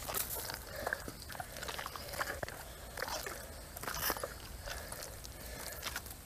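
Thick wet mud squelching and sucking in short, irregular squishes as hands and legs move through it.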